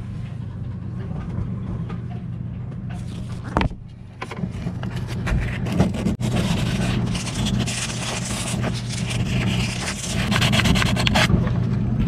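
Sandpaper rubbed by hand over a freshly epoxied fiberglass fitting, a scratchy rasping that gets dense and strong from about four seconds in, with a couple of brief knocks. A steady low hum runs beneath it.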